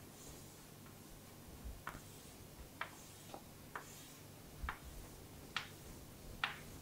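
Chalk tapping and stroking on a chalkboard as grid lines are drawn: about seven faint, irregular ticks over a faint low hum.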